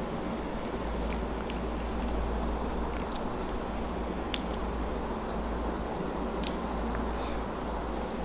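Eating by hand: fingers squishing rice mixed with dal on a plastic plate, and chewing, heard as scattered small wet clicks over a steady background hiss and hum.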